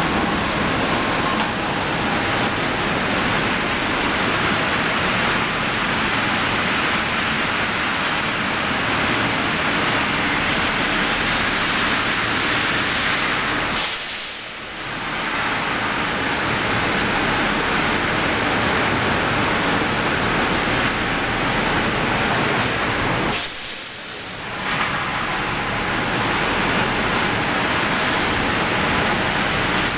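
Hot rolling mill for angle steel running: a loud, steady industrial din from the roll stands and roller tables carrying red-hot bars. Twice, about 14 and 24 seconds in, the din drops for about a second, each time starting with a short high hiss.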